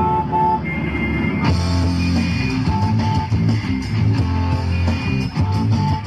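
Rock music led by guitar, fuller and brighter from about a second and a half in.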